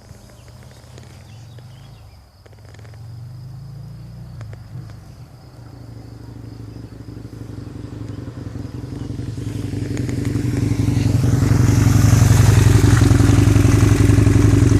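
Husqvarna Nuda 900 R's parallel-twin engine running through an aftermarket exhaust as the motorcycle approaches, growing steadily louder over several seconds and staying loud near the end.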